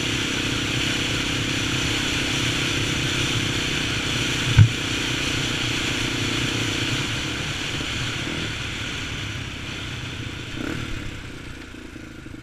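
Honda 400EX ATV's single-cylinder four-stroke engine running steadily under way, with one sharp thump about four and a half seconds in. The engine eases off and grows quieter over the last few seconds.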